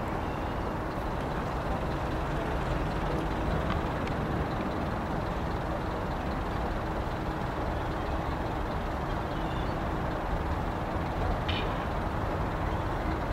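Steady low rumble of distant city traffic, with wind buffeting the microphone.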